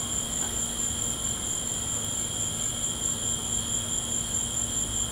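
Steady chorus of night insects, several continuous high-pitched trills holding without a break, over a low rumble.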